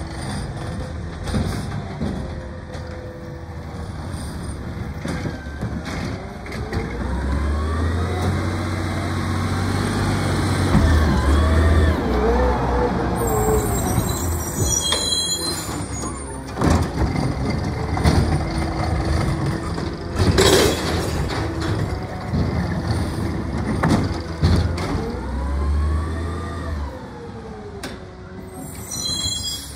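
Automated side-loader garbage truck running. Its engine revs up and down twice, and air brakes hiss sharply about two-thirds of the way through.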